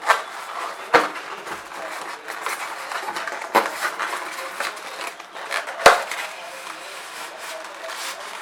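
Hard plastic parts of an air horn kit being handled and set down: four sharp clacks, the loudest about six seconds in, with rustling between them.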